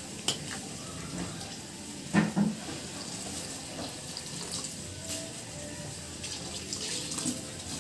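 Water poured from a plastic pitcher into a wok of noodles in broth, splashing steadily. A metal ladle stirring in the wok gives a few sharp clinks, the loudest about two seconds in.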